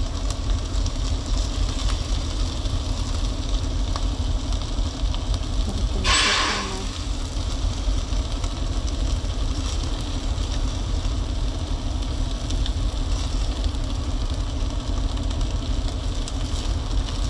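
Semi-truck's diesel engine idling, a steady low rumble heard from inside the cab. About six seconds in, a short loud hiss.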